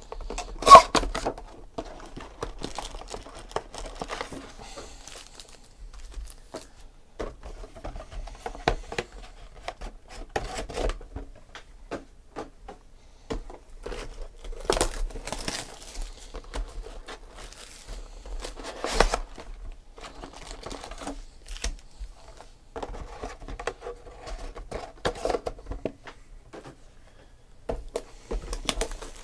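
Boxes of trading cards being handled and opened: cardboard tapping and rubbing, tearing of wrap, and crinkling foil card packs being pulled out, with a sharp knock about a second in.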